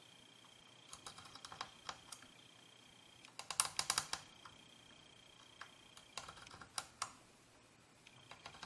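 A multimeter probe tip raked across a row of connector pins, giving runs of light metallic clicks in several bursts, the loudest about three and a half seconds in. This is a continuity check on a synthesizer membrane-switch matrix for switches stuck closed.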